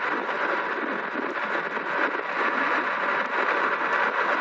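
Steady rush of wind on the microphone mixed with fat-tyre road noise from an electric bike riding at speed.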